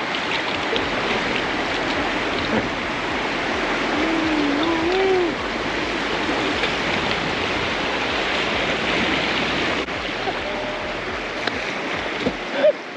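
Rushing river water of whitewater rapids, a loud steady hiss. A short wavering call rises and falls about four seconds in.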